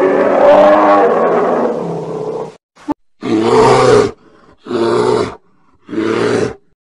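Bear calls: one long call that falls in pitch and fades, then three short calls a little over a second apart.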